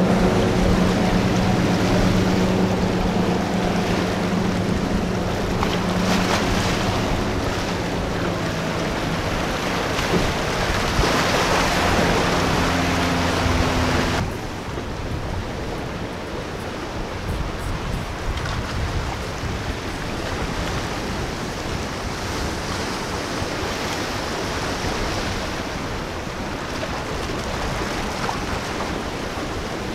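A Regal bowrider's outboard engine running under way with a steady tone over the hiss of its wake, the pitch shifting a little twice. About halfway through this cuts off suddenly, leaving breaking surf and wind buffeting the microphone.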